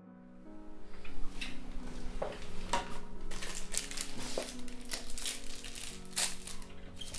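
Plastic sweet wrapper crinkling repeatedly as it is twisted open by hand, starting about a second in, over soft background music.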